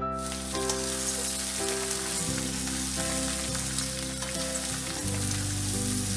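Mixed vegetables (pumpkin, beans, radish, potato) sizzling steadily in hot oil in a kadai as they are stir-fried and stirred with a spatula, with soft background music underneath.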